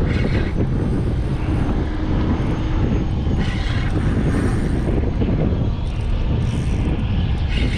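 Boat motor running steadily under way, a loud continuous rumble with wind on the microphone.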